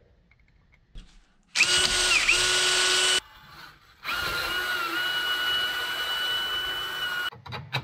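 DeWalt cordless drill with a 5/16-inch bit drilling a pilot hole through PVC pipe. It runs in two goes, about a second and a half, a short pause, then about three seconds, with a steady motor whine that dips briefly once in each run.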